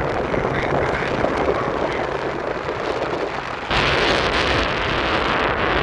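Car driving along a road: steady road noise with wind rushing on the microphone, the wind noise jumping louder about two-thirds of the way through.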